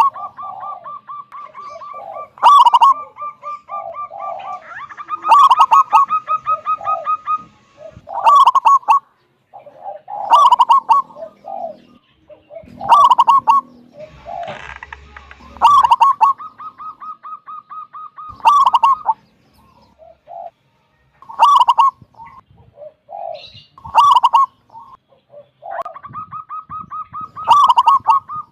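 Zebra dove (perkutut) cooing over and over, a loud phrase about every two and a half to three seconds. Each phrase has a strong low note mixed with a quick run of rapid staccato notes.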